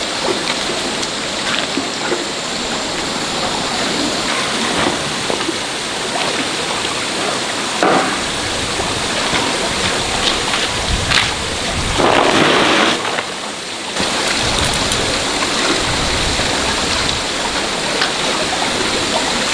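A steady hiss of water, like rain or a running stream, with rustling and knocks as collapsible nylon-mesh fish traps are handled and shaken out. The loudest rustle comes about twelve seconds in.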